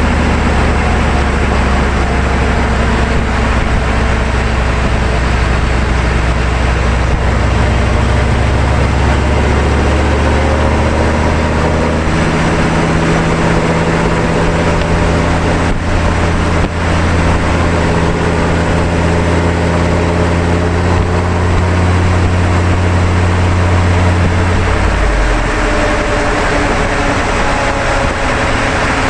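A 1999 GMC 3500 6.5 turbo diesel pickup driving at speed, heard from beneath the truck: steady rushing tyre and wind noise over a low drone from the engine and drivetrain. The drone changes pitch about twelve seconds in and again near the end.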